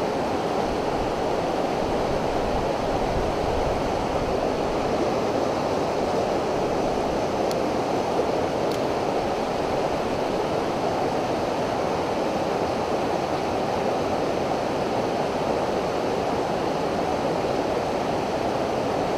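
Stream water rushing steadily through a shallow white-water riffle.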